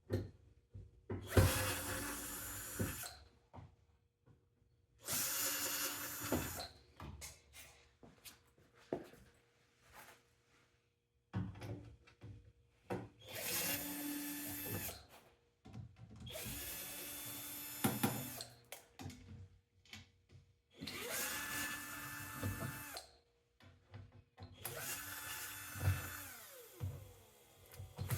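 Cordless drill/driver running in about six short bursts of one to three seconds each, backing screws out of a microwave oven's housing. Short clicks and knocks of handled parts come in the gaps.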